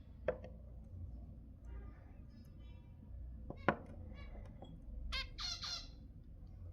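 Zebra finches calling: soft, faint chatter in the middle, then three short calls in quick succession near the end. Sharp clicks about a quarter second in and about three and a half seconds in; the second is the loudest sound.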